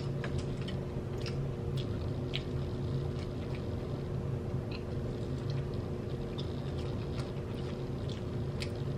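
Chewing, with scattered small mouth clicks, over a steady low hum.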